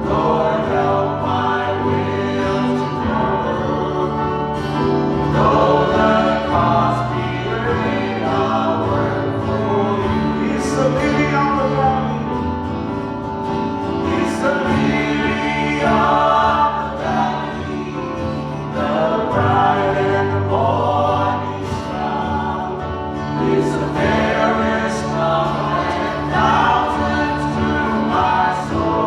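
Gospel worship song: a choir or group of singers with instrumental backing, including guitar and a steady bass.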